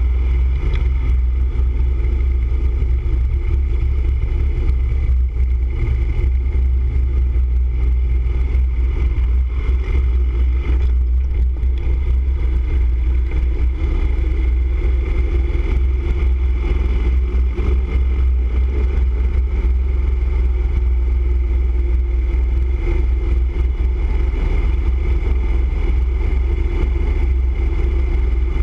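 Motorcycle cruising at steady highway speed: a loud, even engine and road rumble with wind noise, unchanging throughout.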